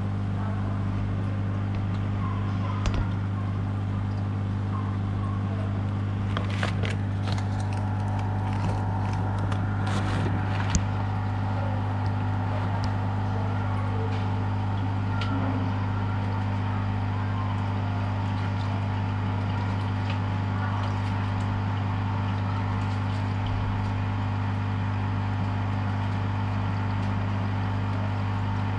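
Steady electric hum of a submersible aquarium filter pump running, with a few light clicks and knocks between about six and eleven seconds in.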